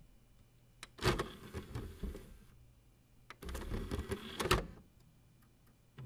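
CD/DVD/Blu-ray player's disc tray driven by its small motor twice, each run a second or so of whirring with clicks as it starts and latches: the tray opening and closing.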